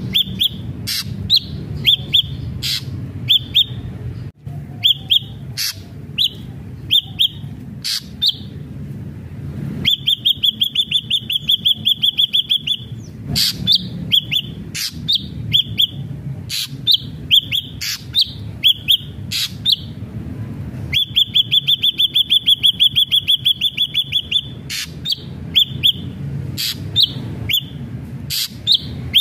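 Ashy drongo singing: loud, short whistled notes near one pitch mixed with sharp clicks. Twice, about a third of the way in and again about two-thirds in, it breaks into a rapid trill lasting about three seconds.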